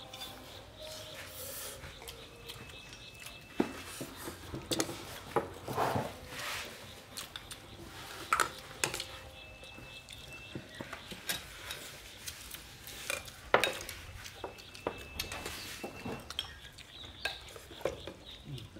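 Chopsticks, spoons and a metal ladle clicking and clinking against ceramic bowls and an aluminium soup pot as soup and food are served and eaten: scattered light taps, a few of which ring briefly.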